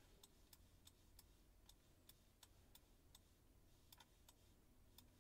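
Near silence with faint, irregular ticks a few times a second: a computer mouse scroll wheel clicking.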